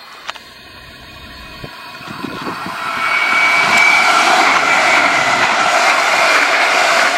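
Munich S-Bahn electric multiple unit (DB Class 423) approaching and passing close by on the track. It grows louder over the first three seconds, then runs loud with wheel-on-rail running noise and a steady high whine.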